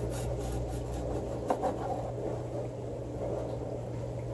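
Serrated knife sawing through a baked chocolate biscotti loaf in a few rasping strokes, with a short sharp tap about a second and a half in, under a steady low hum.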